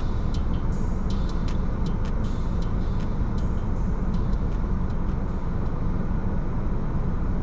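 Road traffic heard from inside a car waiting at a light: a steady low rumble of cross traffic driving past on wet pavement, with scattered light ticks.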